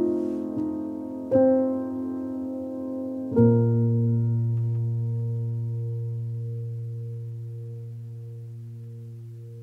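Solo piano music: a few notes, then a low final chord about three seconds in that rings on and slowly dies away.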